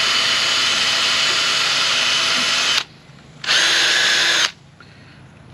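Power drill spinning a wire brush against the rusty battery cable connection at a tractor's starter solenoid, cleaning corrosion off it. It runs steadily, stops a little under three seconds in, then runs again in a short burst of about a second.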